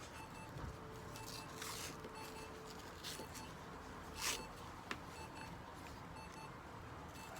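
An electronic device beeping steadily in pairs of short beeps, about once a second, with brief rustling noises; the loudest rustle comes a little past halfway.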